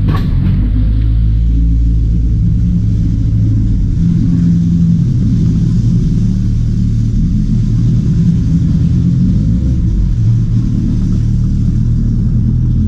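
Outboard motor of a jon boat running steadily at cruising speed, a loud, even low rumble, inside a corrugated metal culvert.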